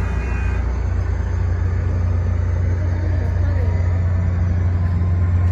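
Caltrain train at a level crossing, a loud, steady low hum that grows slightly louder near the end.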